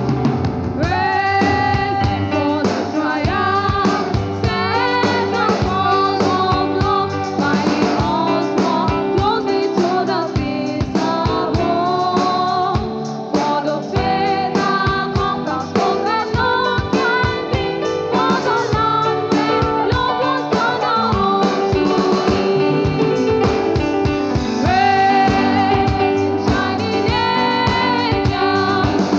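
Live worship music: a sung melody over guitar and a drum kit.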